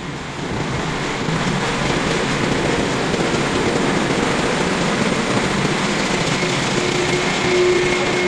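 Steady machinery noise inside a ship, a dense hum and hiss without rhythm, joined near the end by a steady tone.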